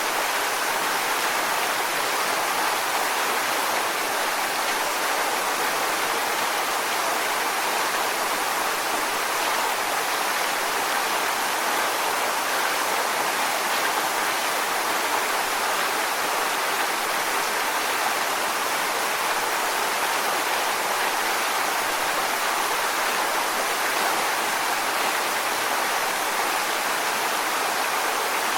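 Waterfall: steady rushing of falling water, an even hiss strongest in the middle and upper range with little low rumble.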